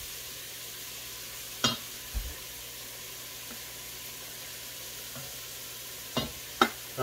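Leeks sautéing in butter in a pan, a steady sizzle, with a few short sharp knocks about two seconds in and twice near the end.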